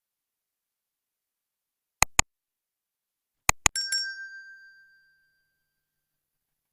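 Two pairs of sharp clicks, then a bright bell-like ding that rings out and fades over about two seconds.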